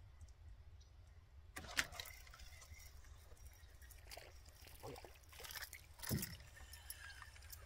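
Faint, irregular clicks and small splashes of water as a small bass on a spinner is brought in and handled at the water's edge, starting about a second and a half in.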